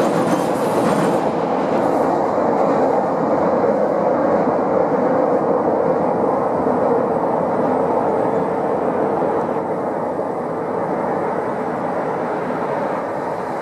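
CTA 5000-series rapid transit train running along an elevated steel structure, a continuous rumble of wheels on the rails that eases slightly toward the end.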